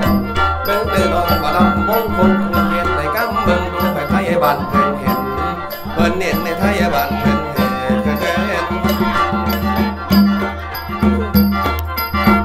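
Isan mor lam dance music: a khaen, the bamboo mouth organ, plays a busy melody over its steady drone, with percussion keeping an even beat.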